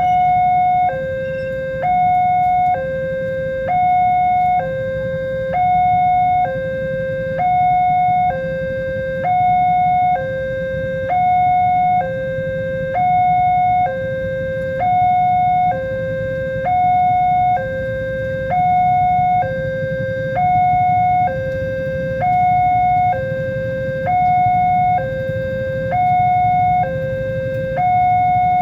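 Railway level crossing warning alarm sounding continuously: an electronic two-tone signal alternating evenly between a higher, louder tone and a lower one, a full high-low cycle about every second and a half, warning that a train is approaching.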